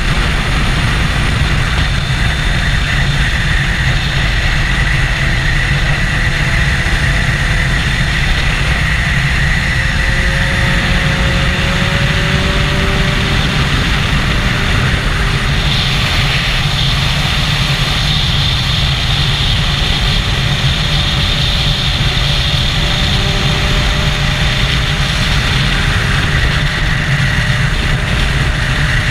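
Triumph Daytona 675's inline-three engine with an Arrow exhaust cruising at steady revs at highway speed, under heavy wind noise on the microphone. A brighter hiss comes in just past halfway.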